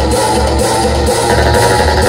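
Rock music with guitar and a heavy, pulsing bass beat, played loud through a car audio show system of Orion midrange speakers and tweeters.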